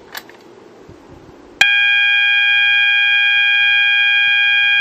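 Fire alarm horn strobe sounding a loud, steady, unbroken electronic horn tone that starts abruptly about a second and a half in, after a short click near the start as the pull station is pulled. The panel is in walk test mode, briefly firing the notification appliance circuit to confirm the zone's alarm device works.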